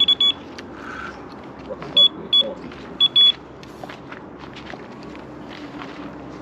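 Electronic carp-fishing bite alarm beeping in short irregular runs of high beeps, a quick burst at the start, then single beeps and a pair a couple of seconds later, as line is pulled across its sensor.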